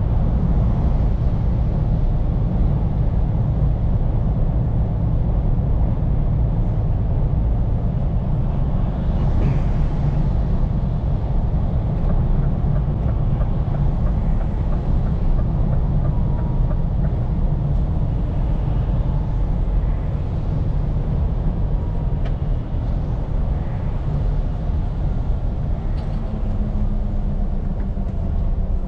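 Scania P410 truck's engine and road noise heard from the driver's cab while driving, a steady low rumble.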